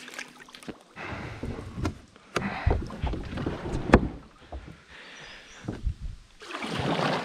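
A person climbing aboard a plastic sit-on-top kayak from logs in a creek: irregular scuffs and knocks on the hull and water disturbance, with a sharp knock about four seconds in and a stretch of rushing noise near the end.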